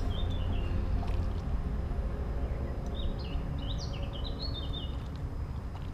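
Birdsong: short runs of quick, stepping chirps near the start and again from about three seconds in, over a steady low rumble of wind on the microphone.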